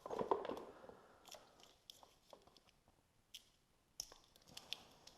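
Hands handling a wiring harness and plastic ATV body parts: a rustling scrape near the start, then scattered light clicks and ticks.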